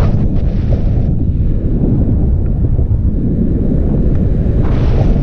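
Wind buffeting the microphone of a camera held out on a stick in paraglider flight: a loud, steady low rumble, with brief hissing gusts near the start and near the end.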